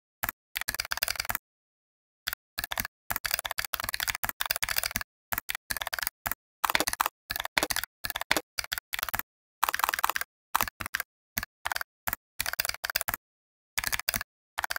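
Fast typing on a computer keyboard: runs of quick keystroke clicks broken by short, completely silent pauses.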